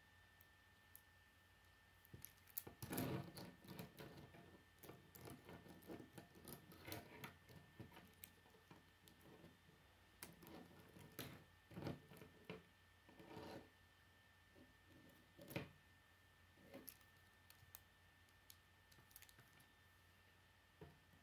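Plastic K'nex rods and connectors clicking and clattering as they are handled and snapped together, in scattered clusters of small clicks with short pauses between, busiest about three seconds in and again in the middle.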